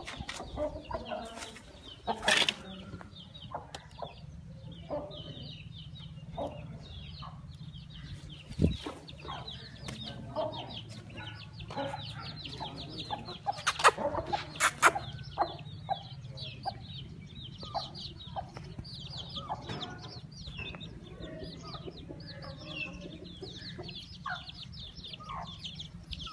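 Chickens clucking, with many short high chirps throughout and a low steady hum underneath. A few sharp knocks stand out, the loudest about a third and about halfway through.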